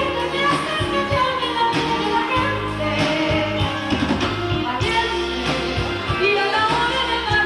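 Live pop music: a woman singing into a microphone over a full backing band, with steady bass notes underneath.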